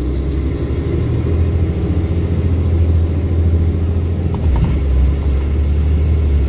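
Diesel engine of a tri-axle dump truck pulling away from a stop and gathering speed, a steady low rumble heard from inside the cab, with a brief change in the drone about four and a half seconds in.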